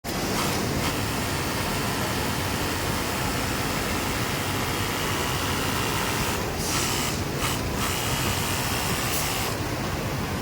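Steady mechanical din of a garment factory floor with industrial sewing machines running, a constant noisy hum with a few brief, sharper stretches of machine noise a little past the middle.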